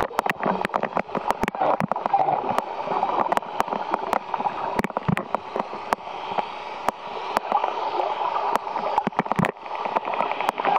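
Underwater water noise, gurgling and rushing, with many sharp clicks scattered at irregular intervals.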